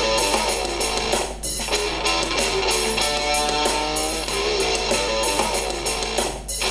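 Guitar-based music played at maximum volume through a laptop's own built-in speakers, with no external speakers connected.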